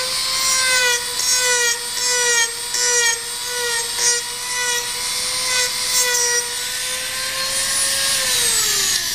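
Dremel rotary tool running at high speed with a steady whine, its bit carving wood in repeated short scraping passes. Near the end it is switched off and the whine falls in pitch as the motor spins down.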